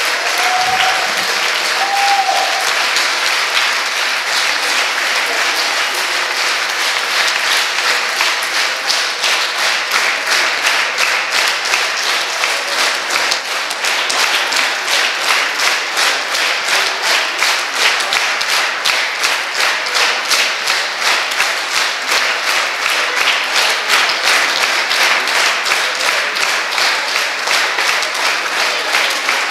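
Audience applauding loudly. After several seconds the clapping falls into a steady rhythm in unison.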